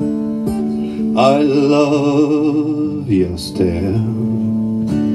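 A man singing to his own acoustic guitar: a chord rings on under a long sung note with a wavering pitch, followed by a shorter sung phrase, with a fresh strum near the end.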